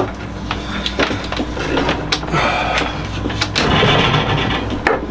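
Tape pulled off the roll in two rasping stretches and wrapped around wires to join them, with clicks and knocks of handling, over a steady low hum.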